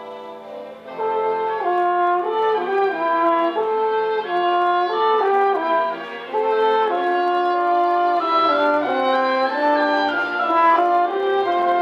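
Live orchestra playing. A quiet held chord gives way about a second in to a louder passage of moving melody over full chords, with a brief dip and re-entry around the middle.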